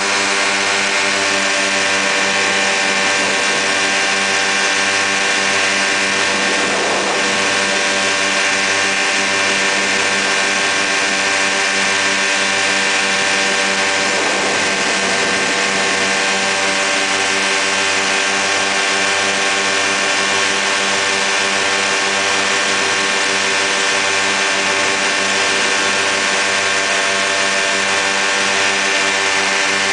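Quicksilver MX ultralight's two-stroke engine and pusher propeller droning at a steady cruise setting, heard from the open pilot's seat with wind rushing past.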